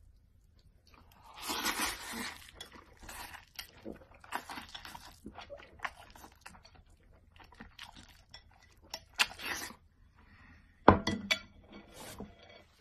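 Someone eating noodles and boiled eggs with chopsticks: a loud slurp a little over a second in, then chewing and mouth noises, with chopsticks clicking against the bowl and a few sharp clinks near the end.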